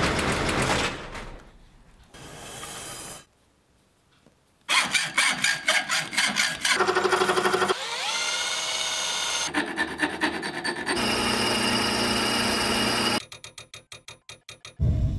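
A quick string of separate workshop sounds: traffic-like street noise at first, then metalworking tools. A drill boring into a steel tube runs up with a rising whine, amid rhythmic scraping and clicking and a steady machine tone, and a fast run of ticks comes near the end.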